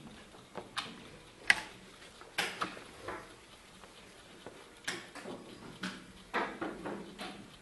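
Wooden chess pieces being set down and the buttons of a mechanical analog chess clock pressed during fast blitz play: an irregular string of sharp clacks and taps, the loudest about one and a half seconds in.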